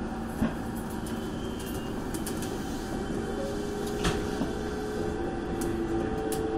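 Toei 5300 series electric train pulling away from a stop, heard from the driver's cab: steady running noise with the motor tones coming in about three seconds in and growing louder as it gathers speed. Two sharp clicks, one about half a second in and one about four seconds in.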